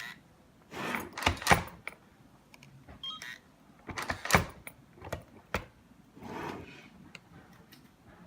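Electronic hotel door lock opened with a card: short electronic beeps, then a series of sharp mechanical clicks and clacks from the lock and handle as the latch is worked.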